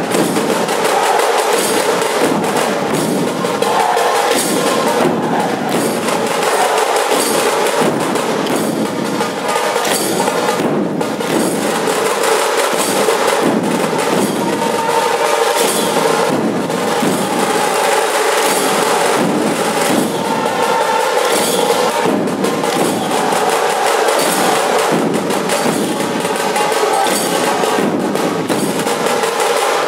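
Dhol tasha ensemble playing: many dhol barrel drums beaten together in a loud, driving rhythm, with tasha drums and clashing brass cymbals on top.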